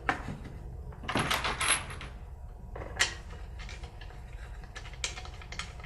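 Knocks and clicks of workbench parts being fitted together by hand, with a scraping rub about a second in, a sharp knock about three seconds in, and several small clicks near the end.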